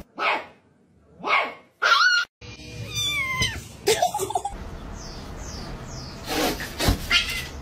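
Cats meowing in quick succession: two short falling meows, a longer wavering cry, a run of faint high squeaks, and a louder cry near the end.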